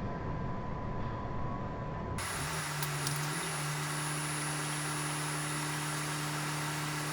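Steady running drone of an articulated city bus, heard through its windscreen dashcam. About two seconds in, the sound changes abruptly to a steadier low hum with a faint high whine.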